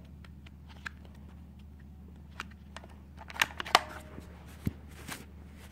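Scattered clicks and light knocks from a Nerf blaster being handled and fired, the loudest pair of clicks coming about three and a half seconds in.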